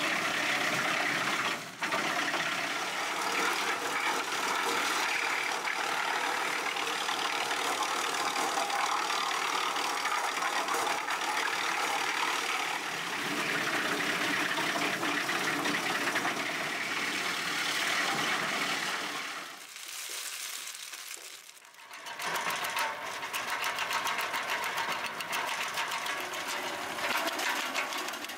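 Wood chipper machinery running steadily under load. It drops away briefly about twenty seconds in, then picks up again.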